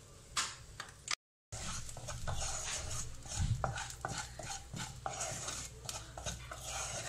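A spatula stirring and scraping spice masala in hot oil in a non-stick kadai: repeated scrapes and clicks starting about a second and a half in, over a low steady hum.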